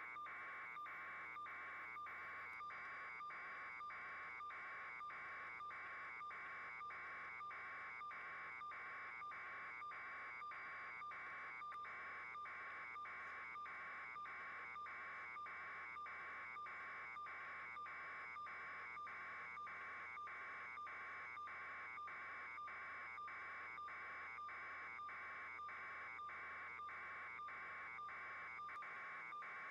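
Faint electronic buzz pulsing evenly, about one and a half pulses a second, with a faint steady hum beneath it.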